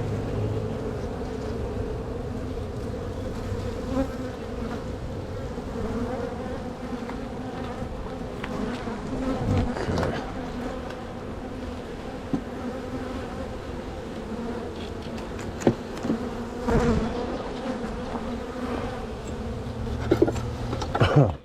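Honeybees buzzing around an open hive, the steady hum of a large, strong colony. A few sharp knocks sound in the middle and several more near the end.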